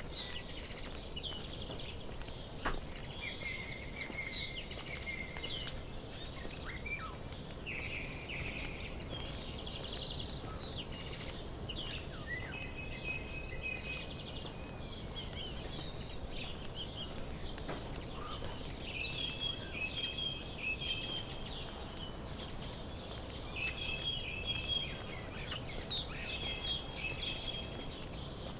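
Several songbirds singing and calling, with short chirps and trills overlapping throughout, over a steady low background noise.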